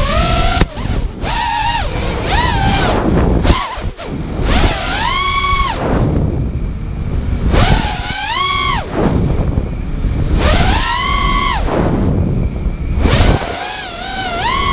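FPV racing quadcopter's brushless motors and propellers whining, the pitch surging up and falling back again and again as the throttle is worked. Propeller wash and rushing air lie underneath, heard from the camera mounted on the drone.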